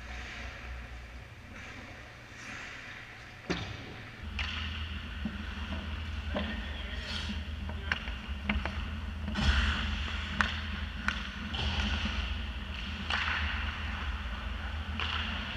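Ice hockey play heard from the net: skate blades scraping the ice and repeated sharp clacks of sticks and puck, over a steady low rumble.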